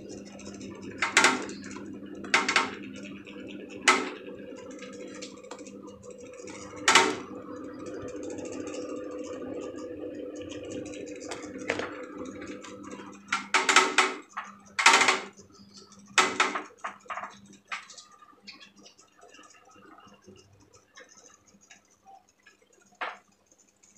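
Electric fan motor humming steadily, with sharp clicks and knocks now and then. After a quick run of loud clicks about halfway through, the hum stops and only scattered faint ticks remain.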